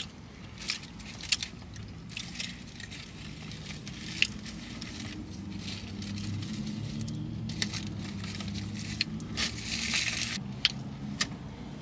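Eating sounds in a car: chewing and handling of fries and a takeout container, heard as scattered crackles and sharp clicks. A steady low hum runs underneath.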